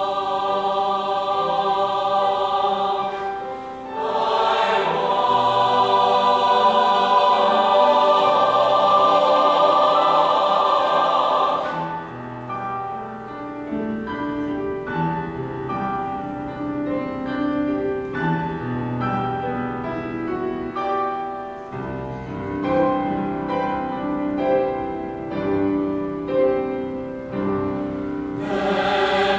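Mixed choir singing with grand piano accompaniment. The choir sings full and loud at first, drops to a softer passage about a third of the way in where separate notes stand out more, and swells loud again near the end.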